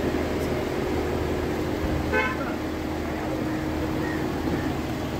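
A car horn gives one short toot about two seconds in, over a steady low hum.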